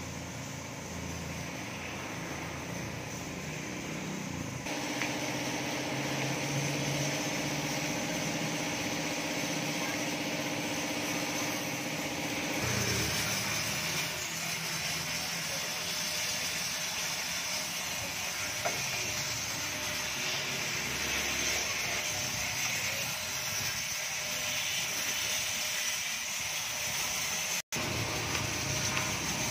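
High-pressure water jet from a car-wash pressure washer spraying a van's wheels and underbody, a steady hiss of spray. A steady machine hum runs under it for several seconds in the first half.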